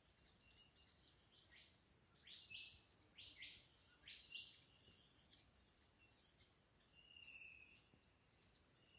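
Faint birdsong: a quick run of about eight sharp, high notes from roughly a second and a half in to halfway through, then a short steady high note near the end, over a soft background hiss.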